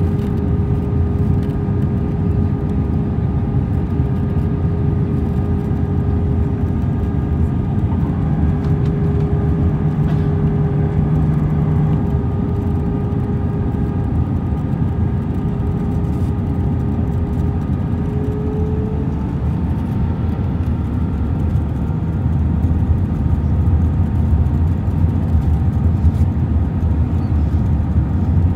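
Airbus A320 cabin noise on approach: a steady, loud rumble of engines and airflow heard from a seat over the wing. A steady hum runs through it, rising slightly in pitch about nineteen seconds in.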